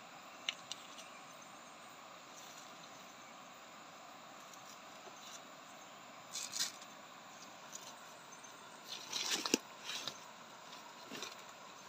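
Dry twigs and leaf litter rustling as hands push through undergrowth to pick wild mushrooms, in a few short irregular bursts, the loudest about nine to ten seconds in, over a steady faint background hiss.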